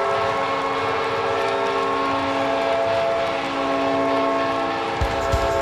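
Hockey goal horn blowing one long, steady, multi-note chord. Near the end a beat of low thumps comes in, the start of a goal song.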